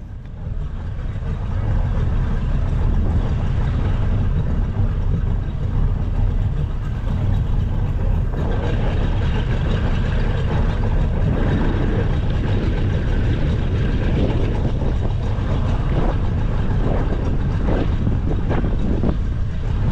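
Boat's outboard motor running steadily, heard from aboard the boat as it moves along the water, building up over the first couple of seconds and then holding a low, even rumble.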